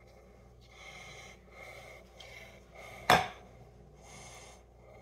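Black pepper being shaken from a small metal shaker over a glass in several soft, short sprinkles, with one sharp knock about three seconds in.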